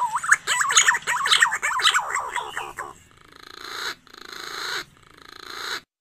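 Green pigeon (punai) call played as a bird-lure recording: a quick run of warbling whistled notes for about three seconds, then three rasping phrases that each swell louder, stopping abruptly near the end.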